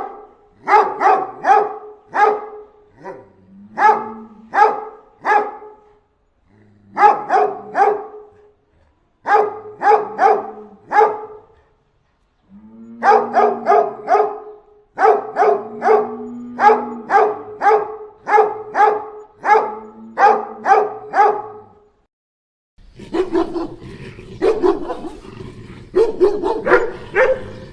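Dogs barking hard in runs of three to six barks with short pauses between them. About twenty-three seconds in, a different recording starts, with denser barking over background noise.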